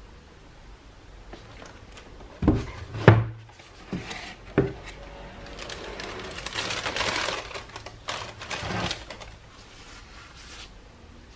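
Cardboard shoebox handled and its lid opened with four sharp knocks and thumps, then a long crinkling of tissue paper folded back from the shoes, then quieter handling.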